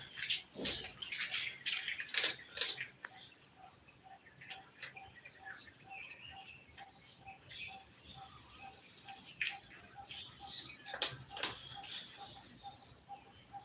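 A steady, high-pitched drone of insects, like crickets, with a faint note repeating about three times a second and a few brief clicks.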